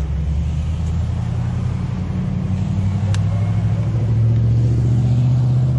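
A vehicle engine running steadily, a low rumble that rises slightly in pitch about four seconds in, with one faint click about three seconds in.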